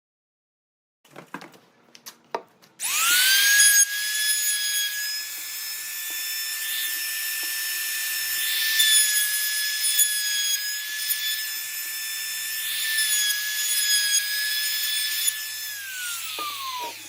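Electric woodworking power tool cutting wood: it spins up to a steady high whine about three seconds in, with the cutting noise swelling several times as it bites into the wood. Near the end it is switched off and its pitch falls as it spins down. A few clicks come before it starts.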